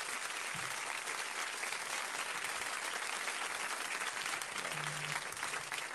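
Steady applause, a dense patter of clapping that dies away at the end.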